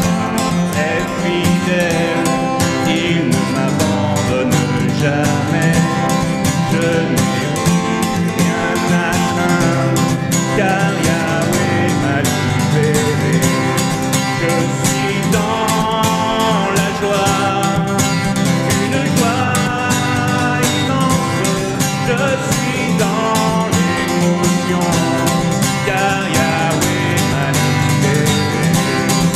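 Acoustic guitar strummed steadily, accompanying a man singing a French worship song.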